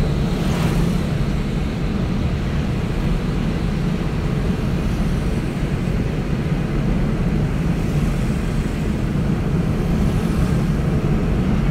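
Steady low rumble of a car on the move, heard from inside its cabin: engine and road noise.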